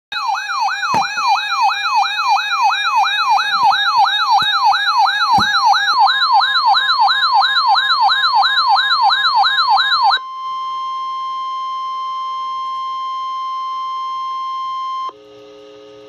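Weather alert radio sounding a flash flood warning: a loud warbling siren alarm sweeping up and down about two and a half times a second for about ten seconds, with a few knocks in the first six seconds. Then a steady single alert tone sounds for about five seconds and cuts off sharply.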